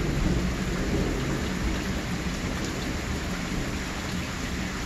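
Steady heavy rain falling on pavement, under a low rumble of thunder that eases off slowly.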